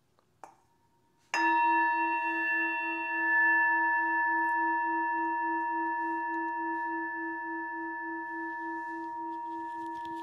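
A small metal singing bowl struck once about a second and a half in, then ringing on with several steady overtones and a low hum that wavers in an even pulse, slowly fading. It is the signal that the class is ending.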